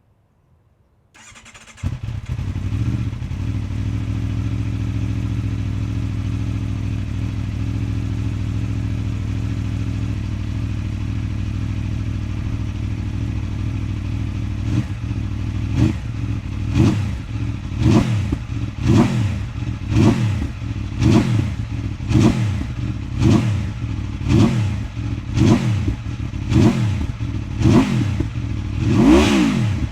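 Aprilia RSV4's V4 engine starting about two seconds in and settling into a steady idle. From about halfway on, the throttle is blipped roughly once a second, each rev rising and falling quickly.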